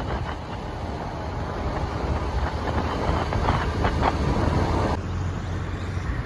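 Road and wind noise from a vehicle travelling along a highway, a low rumble with wind gusting on the microphone. About five seconds in it cuts to a quieter, steadier low rumble.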